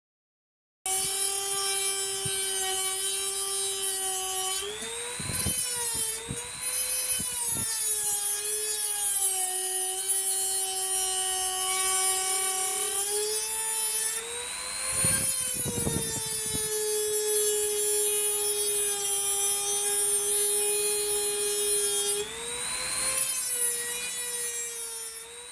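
HILDA JD3321C rotary tool starting up just under a second in and running with a high, steady whine, a cutting disc grinding into material. The pitch shifts under load, with rougher grinding stretches about five seconds in and again about fifteen seconds in.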